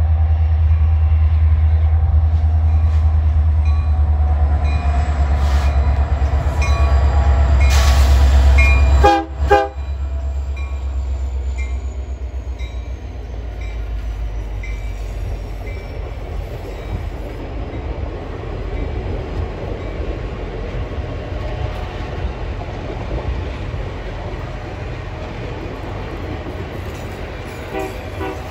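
Union Pacific diesel locomotives passing close, with a heavy low engine rumble for the first nine seconds or so. After that comes the steadier, quieter rolling noise of the streamlined passenger cars going by, with wheel clicks over the rail joints.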